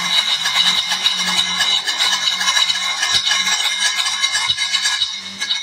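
Marbles rolling down a wooden wave track and dropping into a plastic bowl: a continuous rapid clatter and clinking as they hit the bowl and each other, dying away near the end.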